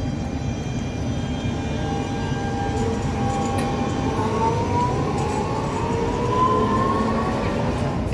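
Carris 500-series Siemens-DÜWAG articulated tram passing close by, a low rumble under an electric whine from its drive that rises slowly in pitch as it picks up speed.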